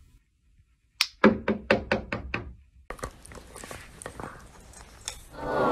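Rapid knocking on a door, about seven quick knocks a quarter second apart, lasting about a second and a half.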